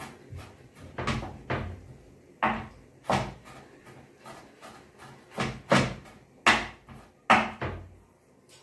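Thick, cornflour-thickened vegetable soup boiling in a pan, its bubbles bursting in irregular plops, about a dozen of them, loudest in the second half.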